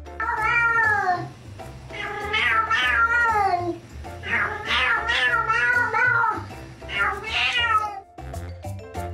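Domestic cat giving four long, drawn-out meows, most of them falling in pitch at the end, over background music with a steady beat.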